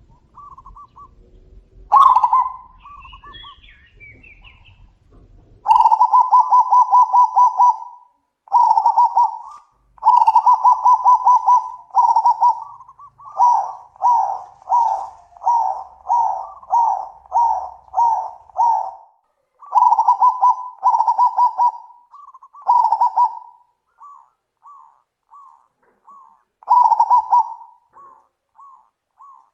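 Zebra doves (perkutut) cooing in loud, rolling, trilled coo phrases, several birds calling back and forth. In the middle there is a fast run of short coos, about one and a half a second.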